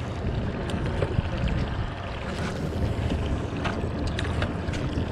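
Steady low rumble of wind and water around a small boat, with wind buffeting the microphone and a few light clicks and knocks.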